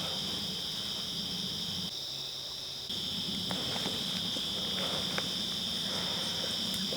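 A chorus of crickets: a steady, unbroken high trill that dips briefly about two seconds in.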